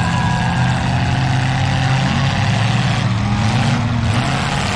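Several stock demolition derby cars' engines running at once, with revs rising and falling as the cars drive.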